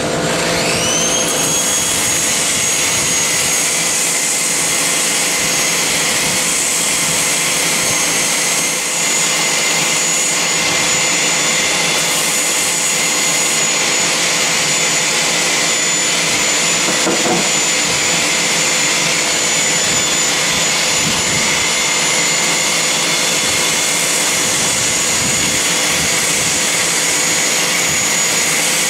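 Porter Cable 7335 random orbit sander with a soft contour pad spinning up about a second in, then running steadily as it sands the convex end of a wooden mallet head, together with the steady rush of the shop vacuum and dust collector drawing the dust away.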